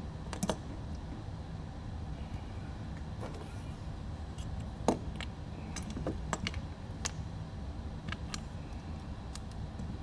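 Small hand tools (tweezers and a driver) clicking and tapping as they are picked up and worked against an FPV drone's frame on a workbench, scattered light clicks with the sharpest about five seconds in, over a steady low hum.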